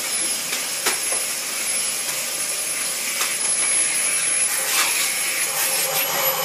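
Upright vacuum cleaner running steadily with a thin high whine as its hose wand is pushed over a mattress, with a few light knocks along the way.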